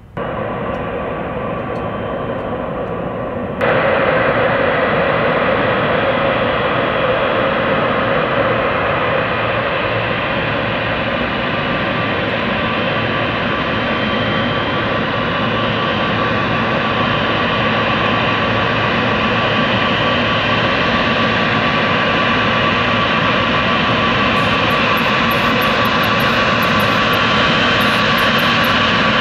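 Boeing 747 jet engines running at high power: a steady, loud rush of jet noise with a steady whine on top. It jumps suddenly louder and brighter a few seconds in.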